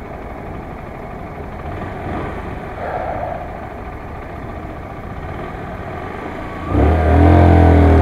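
Honda CBR125 single-cylinder motorcycle riding on a street: a steady engine and road noise. Near the end it changes to a much louder, low engine drone.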